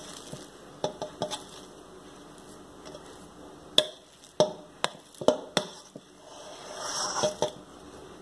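Metal fork clinking and scraping against a stainless steel mixing bowl while mixing stiff pastry dough, with a scatter of sharp clinks and a softer scraping swell near the end.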